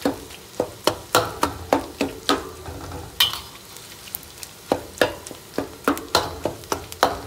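Metal spoon knocking and scraping against a stainless steel pan, breaking up raw beef mince frying with chopped onions in oil, under a steady sizzle. The knocks come two or three times a second, with a short lull midway; the mince is being broken up so it cooks loose rather than in lumps.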